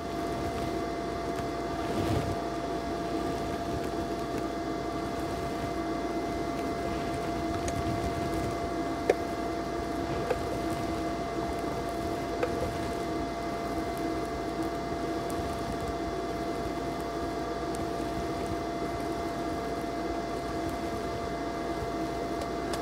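Steady machine hum with a constant tone, and a few faint ticks over it.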